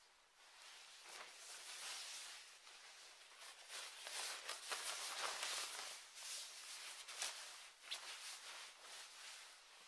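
Faint, uneven rustling noise that swells in the middle, with a couple of sharp clicks near the end.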